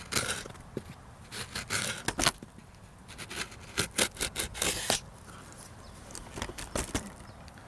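A sharp D2 steel pocket-knife blade cutting in a sharpness test: a run of short scraping slices over the first five seconds, then a few light clicks.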